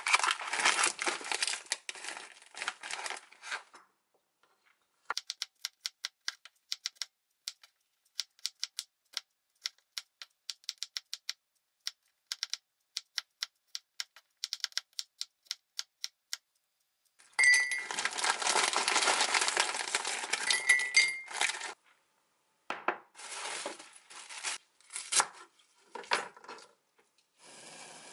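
Kitchen food-prep sounds. Plastic packaging crinkles first. Then a knife taps through garlic cloves onto a wooden cutting board in a long run of quick, sharp clicks. A louder stretch of rustling and clattering follows, and a steady hiss from the pot of blanching noodles on the stove starts near the end.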